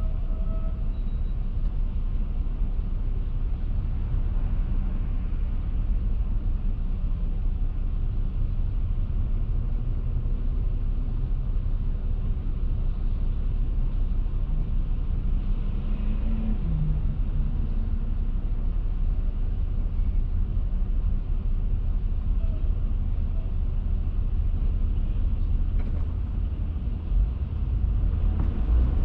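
Steady low rumble of a car and the traffic around it idling at a red light. It grows a little louder near the end as the traffic starts to move off.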